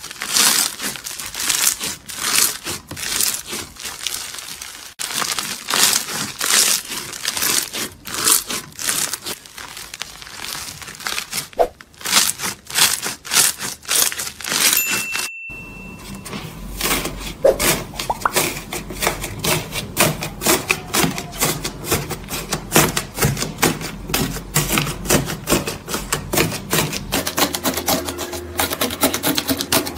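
Crunchy bead-filled slime squeezed and pressed by hand, giving quick runs of crackling pops. After a brief break about halfway, a second slime gives a faster, denser crackle.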